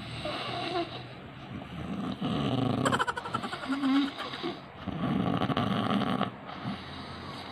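A person snoring with a croaking, frog-like rattle, in long snores a few seconds apart.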